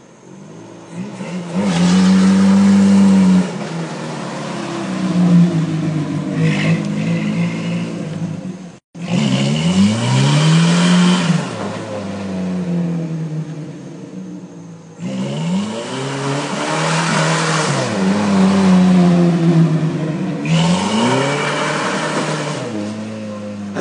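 Toyota pickup's 20R four-cylinder engine through a Flowmaster exhaust, revving and accelerating hard again and again, its pitch climbing and dropping each time. The sound cuts out for an instant about nine seconds in.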